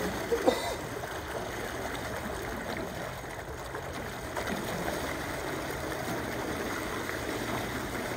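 BlueROV2 thrusters churning and splashing water at the surface of a pool, with a brief louder splash about half a second in. The ROV is riding high, buoyant without its ballast weights, so its thrusters break the surface.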